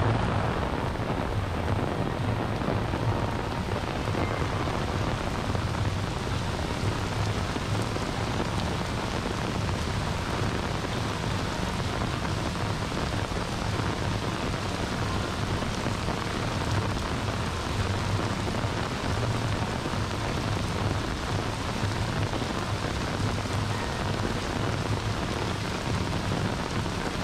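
Steady rain falling, an even hiss with a steady low hum underneath.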